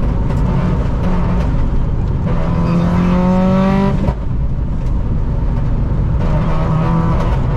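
Rally car's engine heard from inside the cabin under hard acceleration on a sealed stage road: the revs climb steadily for a couple of seconds, drop suddenly about four seconds in at a gear change or lift, then climb again near the end, over constant tyre and road rumble.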